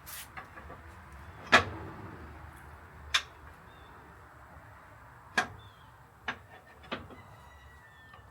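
Five sharp, separate knocks or clanks spread over several seconds, the first the loudest, over a low steady background hum.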